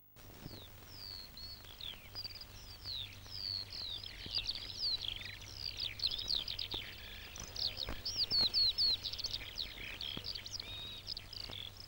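Birdsong: several small birds chirping and whistling at once in quick rising and falling notes, thickest about halfway through, over a faint low hum.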